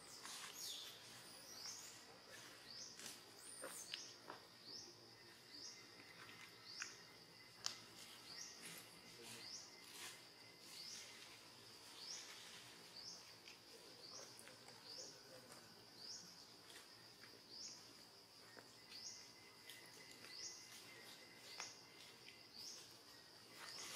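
Faint forest ambience: a short, high chirp repeated steadily about once a second over a faint, steady high tone, with a few soft clicks.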